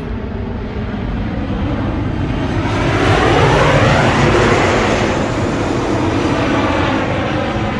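Fixed-wing airplane passing close by. Its engine noise swells to a peak about four seconds in, with a sweeping sound as it goes past, then slowly fades.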